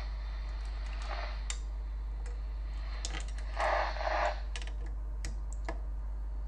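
Light scattered clicks and taps of a handheld radio's antenna and lead being moved over a transceiver's circuit board, with a short rustle a little past halfway, over a steady low hum.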